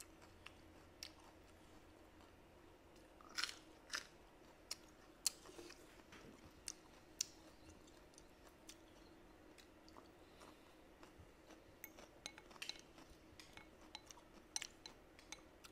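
A person chewing and crunching food close to the microphone: soft, scattered sharp mouth clicks and crunches, bunched in a few spells, over a faint steady hum.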